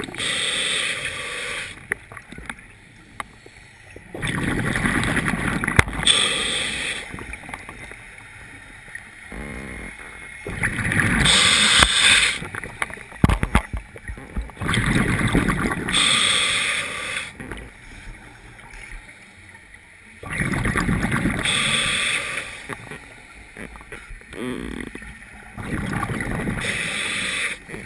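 Scuba diver breathing through a regulator underwater: regular bursts of exhaled bubbles, each two to three seconds long, about every five seconds, with quieter stretches between breaths.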